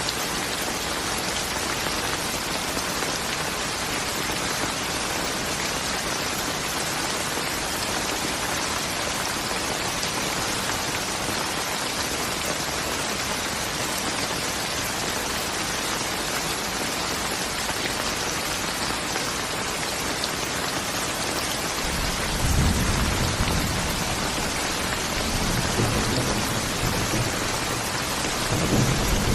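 Steady rain falling, an even hiss. About three-quarters of the way through, low rumbles of thunder roll in and come back again near the end.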